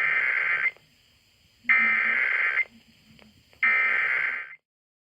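Emergency Alert System SAME header: digital data tones sent in three buzzing bursts, each about a second long with a second's pause between. The first burst is already under way at the start. The header opens an EAS message, here a Required Monthly Test.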